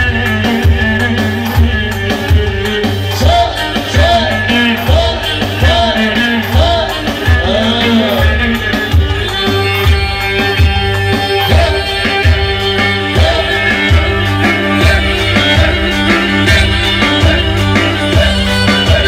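Roman havası dance music from a live, amplified band. A heavy, steady drum beat comes about twice a second under a melody with sliding, ornamented notes, and a violin is among the instruments.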